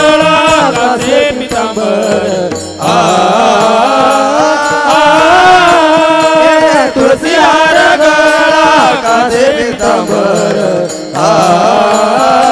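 Marathi kirtan panchapadi: devotional chant sung in a melodic, long-held style over instrumental accompaniment, with short breaks between phrases.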